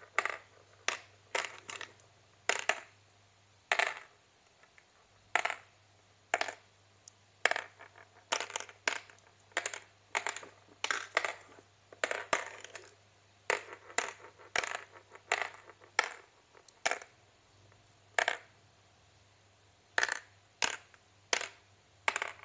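Glass marbles dropped one at a time into the cups of a plastic congkak board, each landing with a sharp click and clatter against the board and the marbles already there. The clicks come at an uneven pace, about one or two a second, as the marbles are sown cup by cup.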